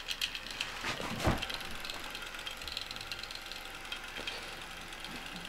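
Stepper motors of a mini drawing laser projector chattering with rapid fine ticks as they swing the mirror to draw line patterns. A single soft knock about a second in.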